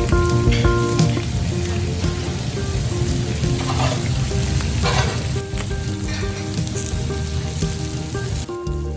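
Food sizzling as it fries in oil in a pan, with a steady hiss that drops away near the end. Background music plays with it.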